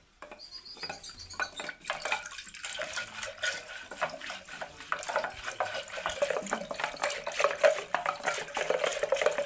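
Wooden churning stick (mathani) twirled back and forth between the palms in an aluminium pot of curd: rapid, continuous clattering against the pot and sloshing of the liquid, as the curd is churned into lassi.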